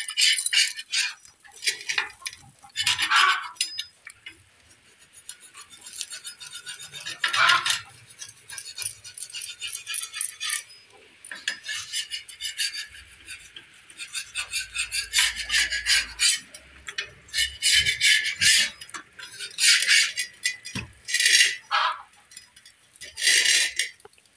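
Stainless steel plates and a steel tumbler clinking and scraping on and off, with food being picked up by hand from a steel plate.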